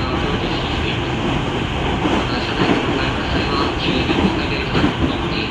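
Running noise inside a Tokyu 5000-series electric motor car (Hitachi IGBT inverter drive), under way: a steady, loud rumble of wheels on rail, with a few short knocks from the track.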